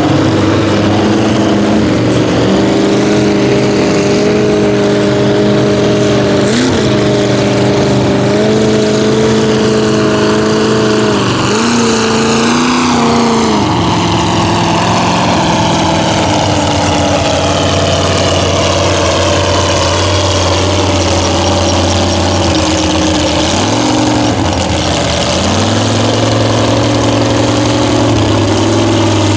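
Lifted Chevrolet S-10 mud truck's big engine running loud and steady through open exhaust stacks at low speed, with a few short throttle blips and one brief let-off as it churns through the mud.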